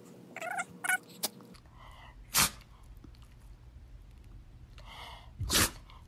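Shih Tzu sneezing repeatedly: a couple of small sneezes in the first second, then two sharp, louder sneezes about three seconds apart.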